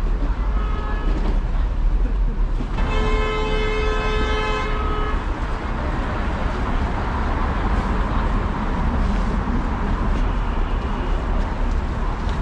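Street traffic with a steady low rumble, and a vehicle horn sounding one long steady blast of about two and a half seconds, starting about three seconds in.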